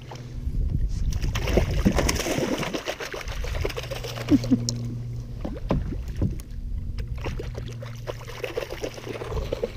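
A hooked false albacore splashing and thrashing at the surface beside a kayak, the splashing coming and going and heaviest a couple of seconds in, with water slapping against the hull.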